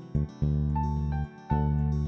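Background music of strummed acoustic guitar chords, each chord ringing about a second before the next.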